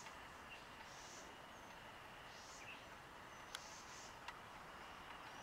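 Near silence: faint outdoor background hiss with soft high-pitched buzzes about once a second, and two faint clicks about three and a half and four seconds in.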